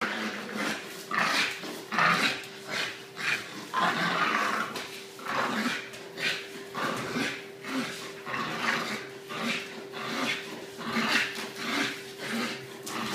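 English bulldog growling and grunting in rough play, a run of short rasping bursts about one or two a second, over a steady hum.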